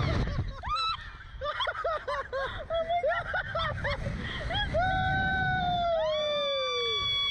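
Two riders on a Slingshot reverse-bungee ride laughing and screaming: quick bursts of laughter, then from about five seconds in two long held screams, one sliding down in pitch near the end.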